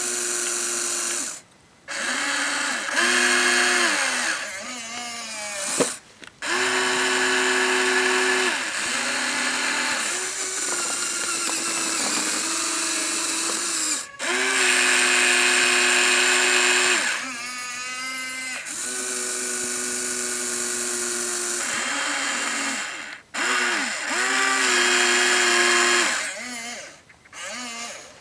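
Huina 1593 RC excavator's electric gear motors whining as the arm and bucket move, in runs of one to several seconds that start and stop with short pauses, the pitch bending briefly as each move begins.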